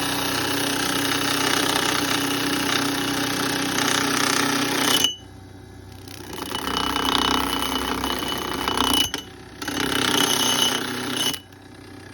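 A power grinder sharpening an axe blade: three long stretches of loud grinding as the blade is pressed to the wheel. Each breaks off suddenly, leaving the tool's quieter motor running between passes.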